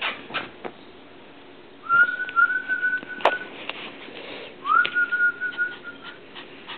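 A person whistling two long, steady notes, each about a second and a half, the second starting with a short upward slide. Light scuffs and taps and one sharp click come between the notes.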